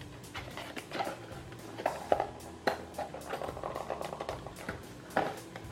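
Cardboard retail CPU box being handled and unpacked: light scrapes, rustles and small taps as the flaps and the inner cardboard pieces are pulled out. The sounds come as a loose series of short clicks and brushes, with a few sharper taps around two to three seconds in and near the end.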